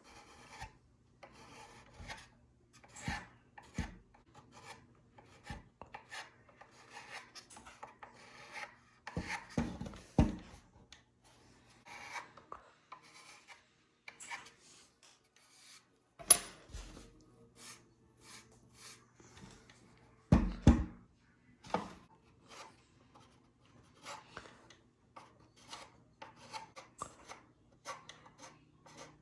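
Hand scraping and rubbing on the plastic housing of a Nerf blaster in short, irregular strokes, with a few louder knocks as it is handled.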